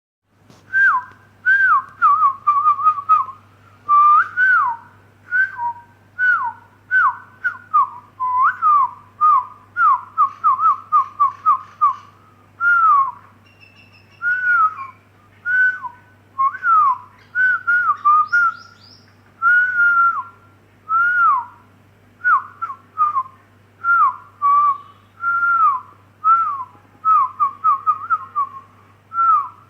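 A person whistling short, falling notes over and over, and a common myna calling back in answer from just outside the window.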